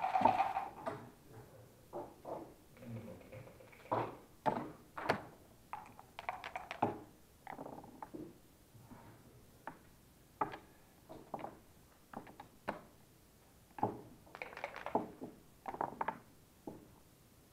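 Backgammon pieces and dice in play: a string of sharp clicks and knocks as checkers are picked up and set down, with a few quick clattering runs of dice.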